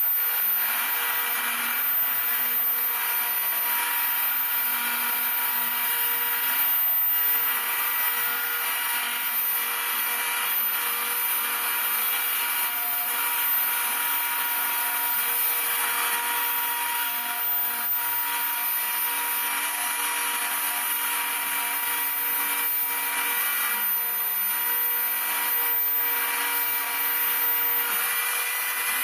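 Homemade CNC router running steadily while milling model-aircraft wing ribs: a constant high spindle whine, with lower stepper-motor tones that keep starting, stopping and changing pitch as the axes move.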